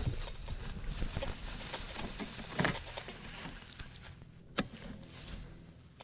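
Road bicycle rolling over a rough, overgrown trail, tyres and frame rattling through brush and weeds, with a few sharp knocks. The noise fades steadily as the bike slows.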